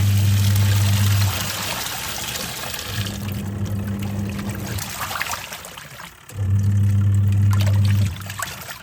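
Twin-tub washing machine in its wash cycle, with water churning and sloshing in the tub. The pulsator motor hums in spells of a second or two, three times, stopping in between as the pulsator reverses direction.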